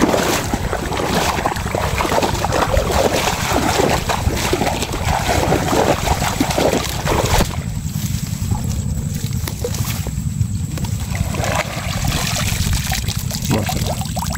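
Grass rustling and water sloshing as someone wades through tall grass in shallow water, over a low wind rumble on the microphone. About seven seconds in, the rustling stops, leaving the wind rumble with faint trickles and small knocks as a bamboo fish trap is handled in the water.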